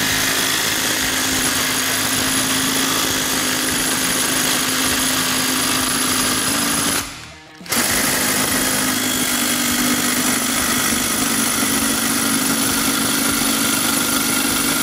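Cordless impact wrench hammering as it spins the forcing screw of a C-frame ball joint press, pressing a ball joint into a steering knuckle. Two long runs with a brief pause about seven seconds in.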